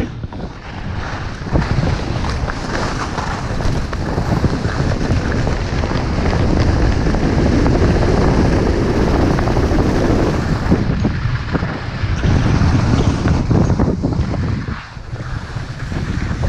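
Wind buffeting the microphone of a camera carried down a ski run, mixed with the hiss and scrape of skis on snow. It is loudest in the middle and drops briefly near the end.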